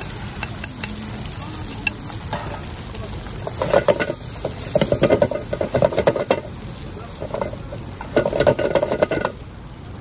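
Stir-frying in a wok: a metal ladle scrapes and clatters against the pan in three quick bursts, over a steady sizzle of frying food.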